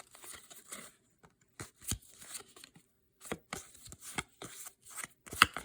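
1992-93 Fleer Ultra basketball trading cards being slid and flipped through by hand: a string of short, irregular papery swishes and light clicks, the sharpest about five seconds in.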